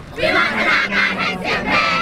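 A large cheering section of students chanting a school cheer song together in loud unison, with a short break right at the start before the next phrase.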